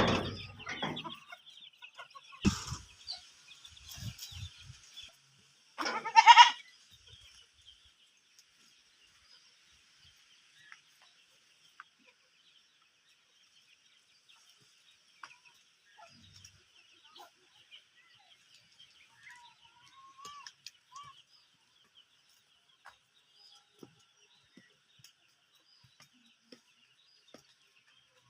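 Farmyard chickens clucking and a goat bleating, with the loudest call about six seconds in and only faint, scattered sounds after the first seven seconds.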